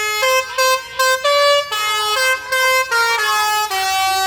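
Basuri 'telolet' musical bus horn playing a melody: about a dozen honked notes stepping up and down in pitch, some short and repeated, some held longer, with one note sliding in pitch partway through.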